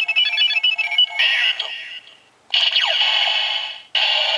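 Kamen Rider Build Ride Watch toy playing its electronic sounds through a small tinny speaker: a quick beeping jingle for about a second, then recorded voice and sound effects, with a falling sweep after a short pause near the middle.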